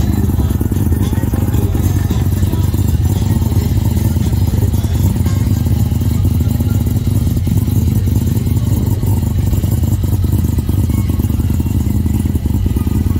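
A vehicle engine idling steadily with an even, low rumble.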